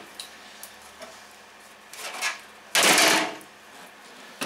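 Handling noise as a roof vent fan is lifted and slid out of its cardboard box: a few short scrapes, then one louder rustling scrape of about half a second around three seconds in.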